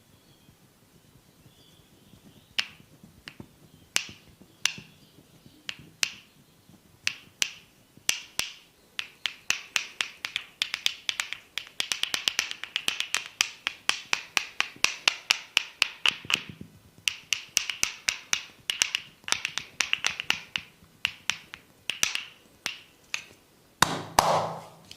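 Crisp snapping clicks from a barber's hands during a head massage. They come singly about once a second at first, then run together into fast, rapid-fire series through the middle, then thin out again, with one louder, fuller snap near the end.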